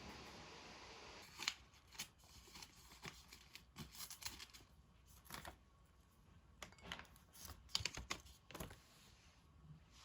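Faint, irregular clicks and taps of small objects being handled, about a dozen spread unevenly over several seconds.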